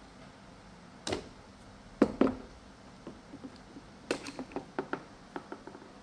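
Hand-handling knocks and clicks of plastic and sheet-metal parts inside a washing machine's top control panel as the water-level pressure sensor is worked out of its mount. Two sharp knocks come close together about two seconds in, then a run of lighter clicks.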